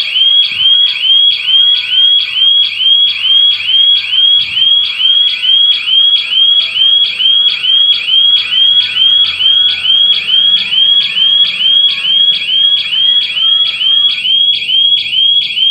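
Burglar alarm siren sounding continuously: a loud, high-pitched electronic chirp repeating evenly about three times a second. It signals that the alarm has been triggered.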